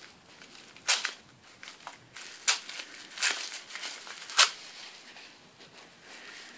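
Gift wrapping being crinkled and torn open by hand: several sharp crackles and tears at irregular moments, with quieter rustling between them.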